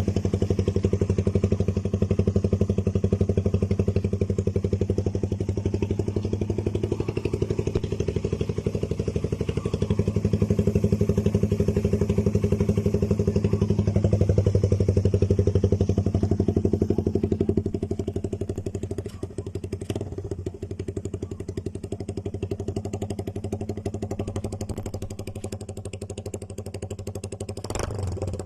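Motorcycle with a NOO Lamlukka aftermarket exhaust pipe, idling steadily with a deep, pulsing note. It drops a little in loudness about two-thirds of the way in, and there is a short knock near the end.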